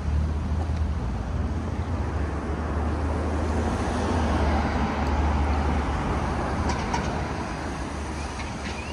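Street traffic: a low, steady engine rumble with road noise that swells as a vehicle passes about halfway through, then fades.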